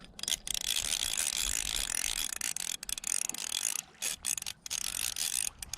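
Fishing reel clicking and whirring in a rapid, continuous run as a hooked bluegill is reeled in, with a few brief pauses.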